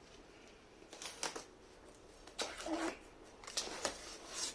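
A cardboard shipping box being opened by hand: several short bursts of scraping and rustling as flaps and packing are pulled open.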